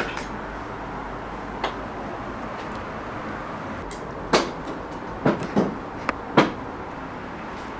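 Footsteps and handling among fire debris and loose floorboards: a few scattered sharp knocks and creaks, the loudest about four and a half seconds in and several more close together a second later, over a steady background hiss.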